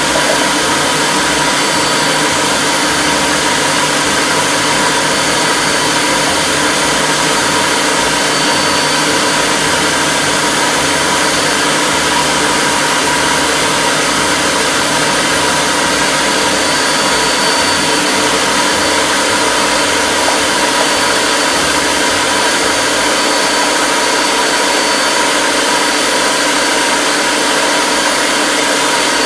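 Electric stand mixer running steadily at a constant speed, beating cake batter after flour has been added.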